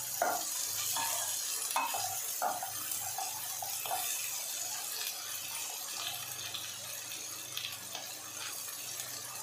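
A wooden spatula stirring and scraping potatoes and peas that are sizzling in a nonstick pan, with several short scraping strokes in the first few seconds over a steady sizzle.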